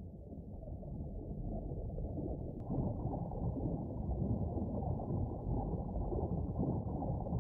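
Underwater ambience sound effect: a muffled, low rushing wash of water. It swells in over the first second or two and turns a little brighter about two and a half seconds in.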